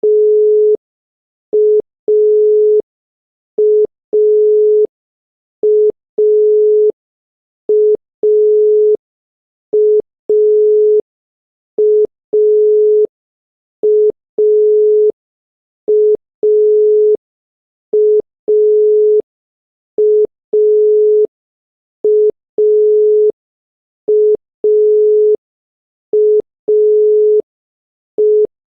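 Obsolete Bulgarian telephone dial tone: a single steady tone keyed in a repeating pattern of a short beep then a longer beep, the pair recurring about every two seconds. It signals that the line is ready to receive the number.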